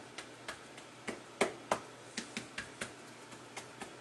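Fingertips patting soft gluten-free tortilla dough flat on plastic wrap: a quick, uneven string of light pats, about three or four a second.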